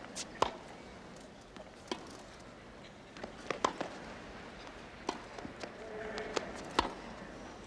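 Tennis ball struck back and forth by rackets and bouncing on a hard court in a baseline rally: sharp pocks every second or so, the loudest being the racket hits.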